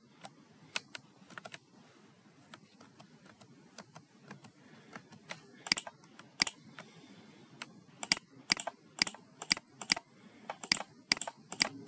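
Scattered sharp clicks of a computer mouse and keyboard while polygons are being selected, sparse at first and coming faster in the second half.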